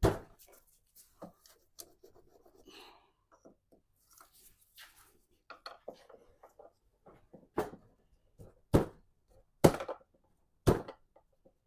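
A screwdriver tapping on a stuck radiator hose connection to break the hose loose. A few light taps and some scraping come first, then four hard knocks about a second apart.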